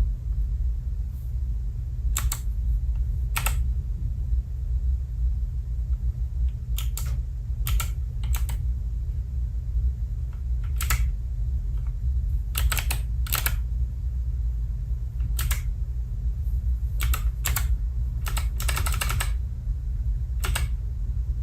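Keys of an Alpha28 28-key keypad being typed on: sharp clicks at an irregular pace, mostly single presses a second or more apart, with a few quick runs of several keys, the longest just before the end. A steady low hum runs underneath.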